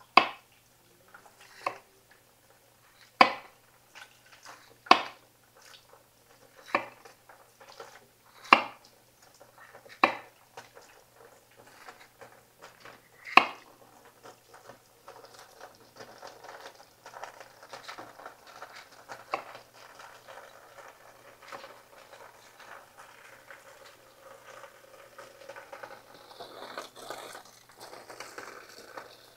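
Kitchen knife cutting green bell peppers on a wooden cutting board: sharp single knocks of the blade on the board, about one every one and a half to two seconds, then softer, quicker taps from about halfway through.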